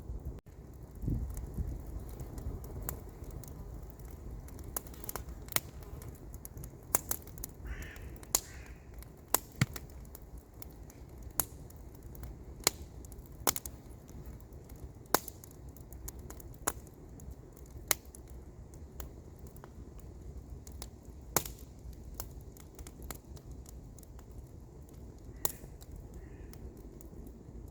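Wood campfire crackling, with sharp pops about once or twice a second over a low steady rumble.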